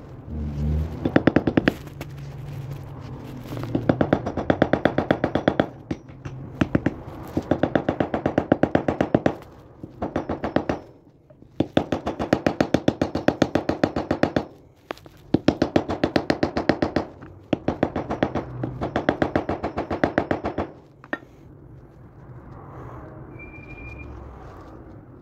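A small hammer rapidly tapping metal on metal as the knife's handle pins are hammered on a heavy steel ring used as an anvil. The taps come in about six quick runs of one to three seconds each with short pauses between, and stop for the last few seconds.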